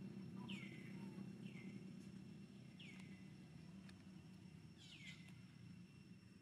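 Faint bird calls: a few short chirps, each falling in pitch, spaced a second or two apart, over a steady low hum.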